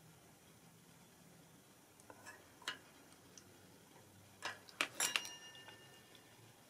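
Light metal clicks and taps: a digital caliper's jaw against the steel tube and glass vial of a Starrett 98-8 machinist level. They come singly from about two seconds in, then bunch together near five seconds, where the last taps leave a brief high metallic ring.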